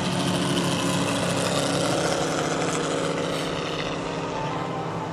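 Four-stroke Moki radial engines of large-scale RC AT-6 Texan models flying overhead: a steady propeller drone that is loudest in the first couple of seconds and eases off slightly toward the end.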